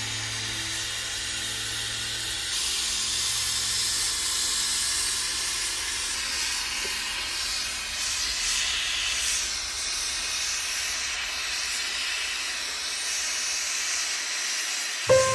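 Jeweller's gas torch burning with a steady hiss as its flame is played along twisted metal wire.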